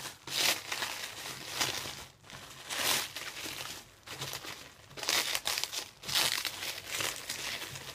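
Thin blue plastic cling wrap crinkling and crackling in irregular bursts as hands pick and pull at it.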